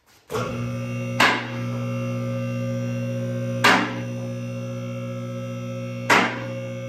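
Electric hydraulic pump of a two-post car lift starts about a third of a second in and runs with a steady hum as the lift raises the load. The arm safety locks click three times, about two and a half seconds apart, as the carriages climb past each lock position.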